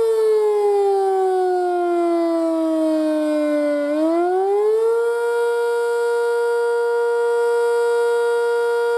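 Sentry 5V outdoor warning siren sounding the wavering attack signal. Its tone winds down in pitch for about four seconds, spins back up to full pitch within about a second, then holds steady.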